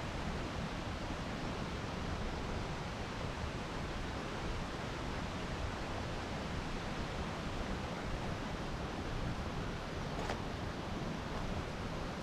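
Steady rushing outdoor noise, even and unbroken, with a faint click about ten seconds in.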